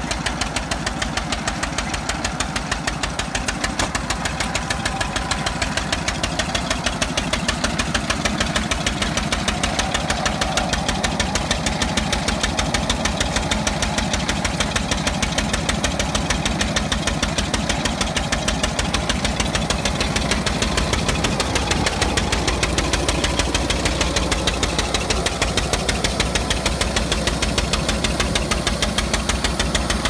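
Antique stationary engine running at a steady speed, with a fast, even beat of knocks.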